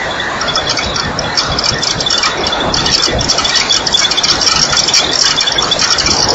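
Night insect chorus: rapid, high, pulsing chirps over a steady rushing noise. No lion call is heard.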